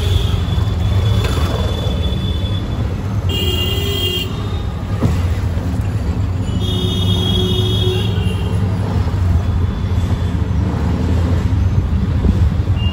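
Street traffic heard from a moving vehicle: a steady low engine and road rumble, with two high-pitched vehicle horn honks of about a second each, a few seconds in and again about halfway through.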